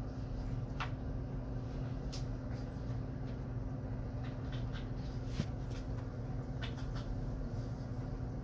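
Steady low hum of a nano reef aquarium's pump, with a few faint scattered clicks.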